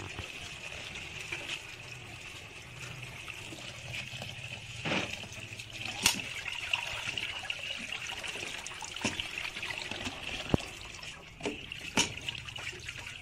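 Water poured onto soaked rice in an aluminium basin, trickling steadily and dripping through into a metal bucket below as the rice is rinsed by hand. A few sharp knocks, the loudest about six and twelve seconds in.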